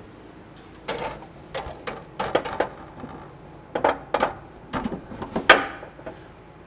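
A hand wrench working on the steering shaft's fasteners, metal on metal, in irregular bursts of short clicks and clinks. The loudest is a ringing clink near the end.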